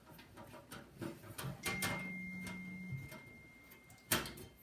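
A screw being driven back into a metal PC case with a screwdriver: a run of small clicks and scrapes, with a louder knock about four seconds in. A faint steady high tone sounds for a couple of seconds in the middle.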